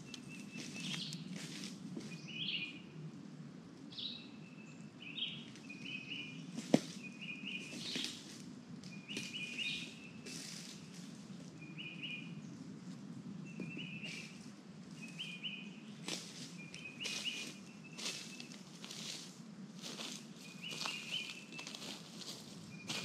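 A bird repeats a short chirping call about once a second, over scattered crackles of dry leaf litter from footsteps. About seven seconds in there is one sharp click.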